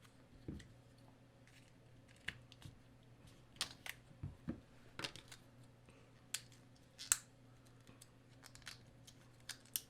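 Coin-cell battery packaging being worked open by hand: irregular sharp clicks, snips and crinkles, the loudest about seven seconds in, over a faint steady hum.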